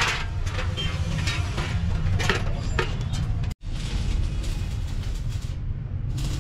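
Metal workshop ambience: a steady low rumble with scattered knocks and clanks of steel. The sound cuts out for a moment just past halfway, then carries on.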